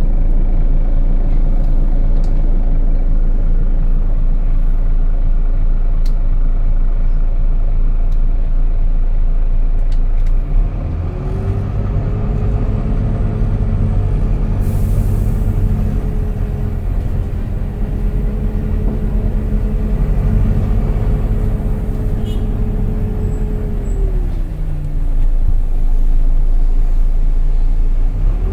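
Volvo B9TL double-decker bus running, heard on board: a steady low engine drone, then about ten seconds in a whine rises and holds as the bus picks up speed. Near the end the whine falls away, then starts to rise again.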